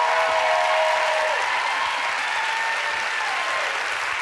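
Studio audience applauding and cheering. A long high whoop rides over the clapping for the first second and a half.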